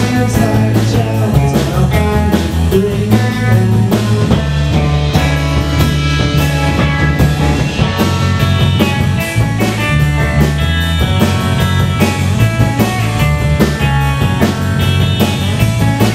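Rock band playing: distorted electric guitars over a drum kit keeping a steady beat with cymbals, and a heavy low end.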